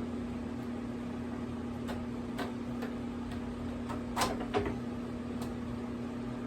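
Steady electric fan hum under a scatter of light clicks and knocks from the animatronic prop's frame parts being handled, the two loudest knocks coming close together a little after four seconds in.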